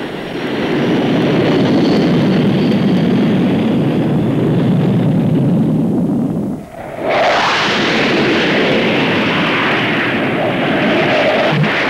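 Jet aircraft engine noise: a low, steady jet rumble, then after a brief break about six and a half seconds in, a louder and higher-pitched jet sound.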